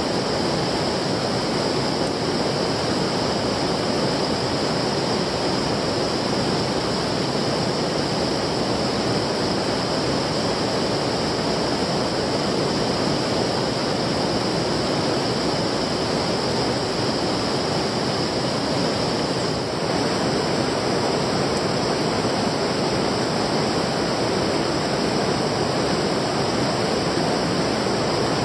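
Steady rush of flowing stream water, with a brief dip about twenty seconds in.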